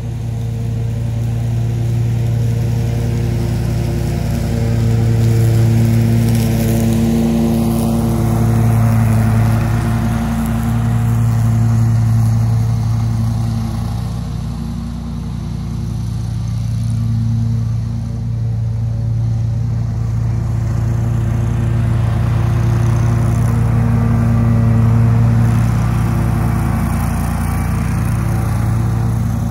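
The Honda 779cc V-twin engine of a Bad Boy Maverick HD zero-turn mower running steadily at mowing speed. Its steady hum swells and dips a little as the mower moves about.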